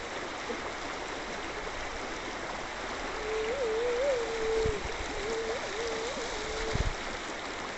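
Steady rush of floodwater running down a street. In the middle a wavering pitched tone rises and falls for a few seconds, with a couple of dull low thumps.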